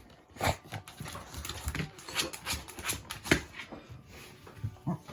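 Beagle pawing and scrabbling at the gap under a refrigerator to reach a dropped treat: irregular short scrapes and knocks, the loudest about half a second in and again past the middle.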